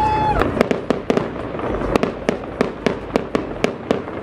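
Fireworks salute: a rapid, regular string of sharp bangs, about three a second, as shells burst overhead. A high steady whistle cuts off just before the bangs begin.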